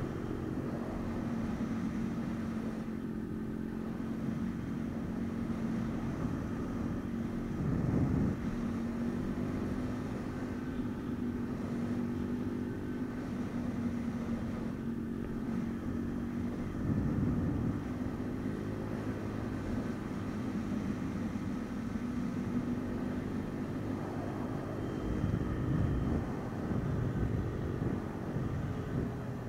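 MRF 140 RC pit bike's 140 cc single-cylinder four-stroke engine running at steady revs under way. It gives a few brief throttle surges: about eight seconds in, around the middle, and twice near the end.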